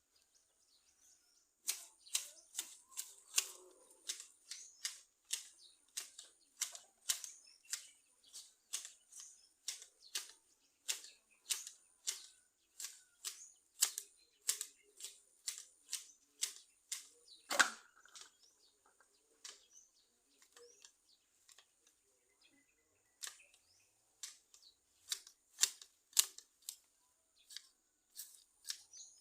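Manual hedge shears snipping a hedge: a steady run of sharp blade clicks, about two a second, with a short pause about two-thirds of the way through and one louder snap a little past the middle.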